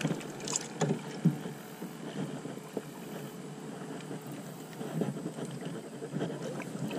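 Light knocks and rustles of fishing gear being handled beside a canoe, a few in quick succession over the first second or so with one sharper knock, then scattered softer ones over a steady faint hiss.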